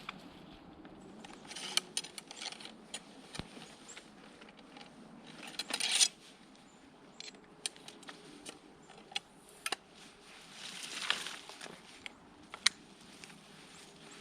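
Footsteps and rustling through brush, with scattered sharp clicks and light metallic jingles of gear.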